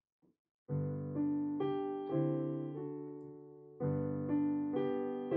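Piano playing the slow introduction to a worship song: chords starting just under a second in, a new one about every half second, each left to ring and fade.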